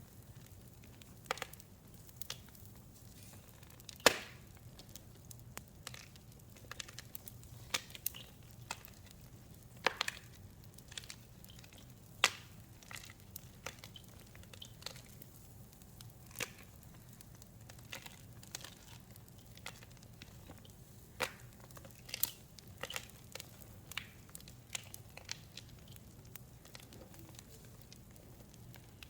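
Gym chalk mixed with powders and bath crackles being crushed by hand: scattered, irregular sharp cracks and crunches, a few noticeably louder snaps among them, over a faint steady low hum.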